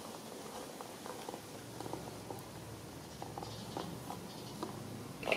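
Soft, irregular little clicks and rustles from baby macaques chewing and handling food. A low steady hum comes in about two seconds in.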